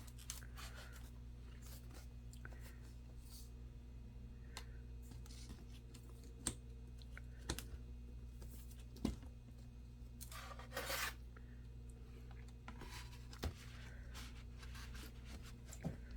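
Faint handling noises of laptop parts: a few separate small clicks and a short scraping rub about eleven seconds in, over a steady low electrical hum.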